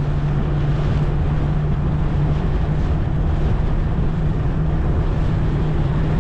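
Vehicle driving along a road: a steady engine drone with constant road and wind noise.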